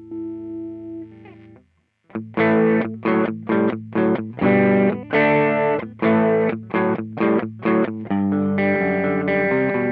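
Overdriven electric guitar through an Ibanez Tube Screamer pedal (TS9 circuit). A held chord fades away, then after a brief gap a riff of short, chopped chords starts, about 2 s in. Near the end it moves into sustained notes with slides.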